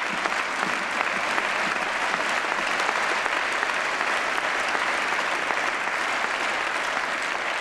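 Applause from a large seated audience, many people clapping at once at a steady level.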